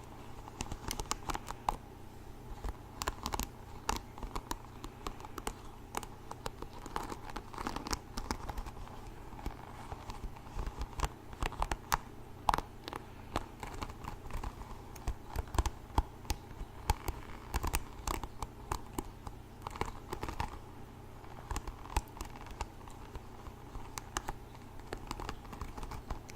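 Hairbrush making scratchy, crackling sounds, with many irregular sharp clicks and taps.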